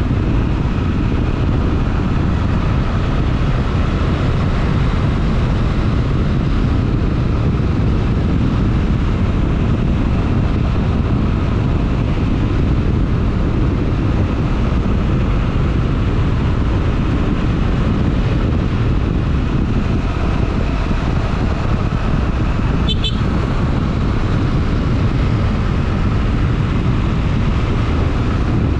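Honda XRE 300's single-cylinder engine running at a steady pace on the move, under a heavy, even wind rumble on the microphone. A brief high chirp comes about three-quarters of the way through.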